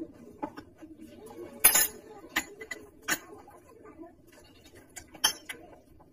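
A small spoon tapping and scraping against food bowls: a handful of short, scattered clinks and clicks, the loudest a brief scrape just under two seconds in.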